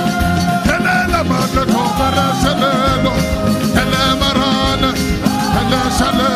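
Gospel worship music playing on with a steady beat and a wavering melodic line held over it, between sung phrases.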